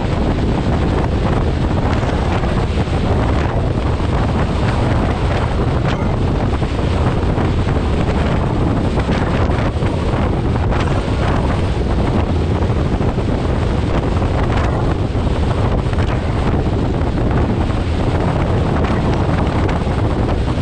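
Peterbilt 362 cabover semi truck under way, its Caterpillar diesel giving a steady low drone under road noise, with heavy wind buffeting the microphone.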